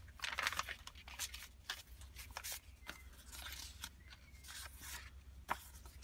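Rustling and crinkling of coffee-dyed paper as journal pages are turned and tucked tags and envelopes are handled, in a string of short scuffs with a sharp tap about five and a half seconds in.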